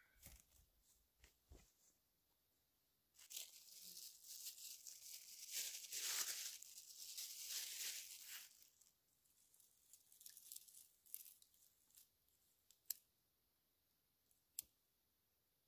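A light bag crinkling and tearing as it is opened and handled by hand for about five seconds. Later come two sharp snaps as small twigs are handled.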